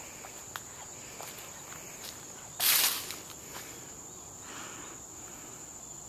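Footsteps on a dirt and leaf-litter woodland trail, with one brief loud rustle about halfway through, over a steady high-pitched drone of insects.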